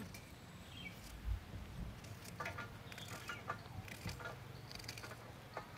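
Faint, scattered ticks of a small knife cutting through an onion held in the hand, with diced pieces dropping onto a steel plate.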